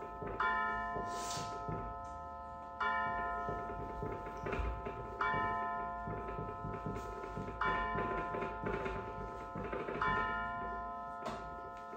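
Pendulum wall clock striking on its gong: five slow, evenly spaced strikes about two and a half seconds apart, each ringing on with several tones as it fades.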